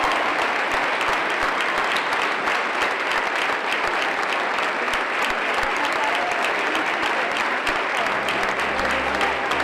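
A large standing audience applauding steadily in a hall. About eight seconds in, music with low, sustained bass notes starts underneath the clapping.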